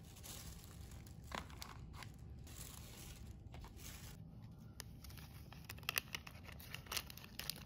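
Paper fries bag rustling and crinkling as it is handled and opened, with a few sharp crackles of paper near the end.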